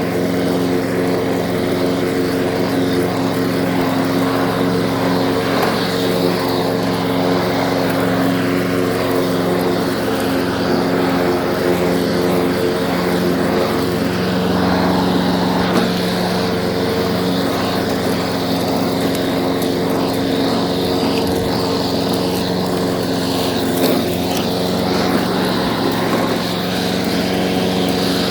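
Torres lawn mower's small engine running at a steady speed.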